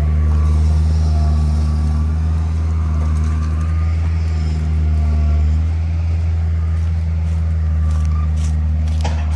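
Engine running at a steady speed, an even low drone that holds without revving, with a few faint clicks near the end.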